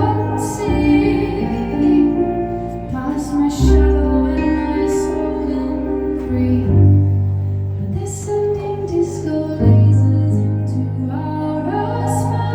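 A live song: a woman singing over instrumental accompaniment, with sustained bass notes that change about every three seconds.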